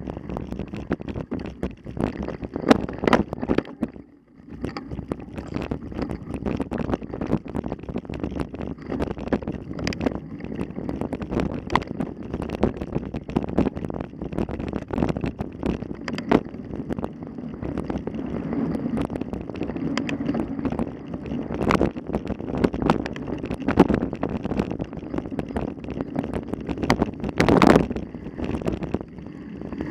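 Wind buffeting the microphone with a steady rumble, broken by frequent sharp knocks and rattles.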